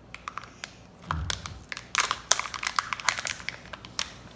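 Crinkly wrapping of a Kinder Joy surprise egg being handled and pulled open: a run of crackles and rustles, with a dull bump about a second in.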